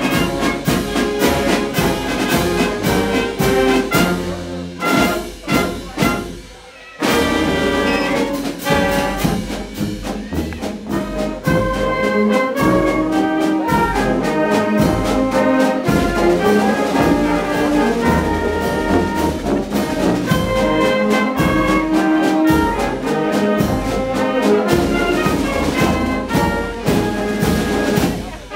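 Live fanfare band of brass, flutes, sousaphone and percussion playing a full-band piece, with sustained brass chords over a steady percussive beat. It thins out and drops quiet for a moment about six seconds in, then comes back in loud with the full band.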